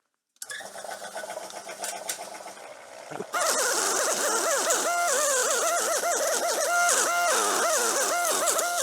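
Air compressor switched on and running. About three seconds in, a much louder hissing noise with a wavering, warbling whine takes over.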